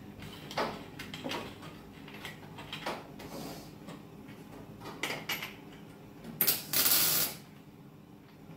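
Intermittent clicks and knocks of hand tools working on a car's bare steel body shell, with a short loud rush of noise lasting under a second about six and a half seconds in.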